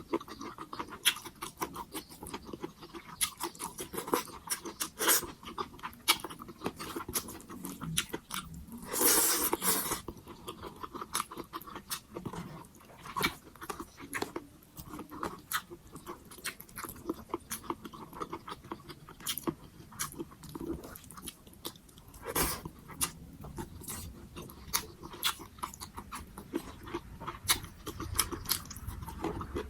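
Close-miked eating of pork sinigang: irregular wet chewing and lip-smacking clicks, with one louder, longer noisy sound about nine seconds in.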